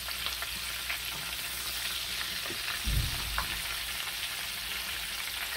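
Egg-dipped, coated fish fillets shallow-frying in hot oil in a pan, sizzling steadily with small crackles and pops. A short low bump about three seconds in.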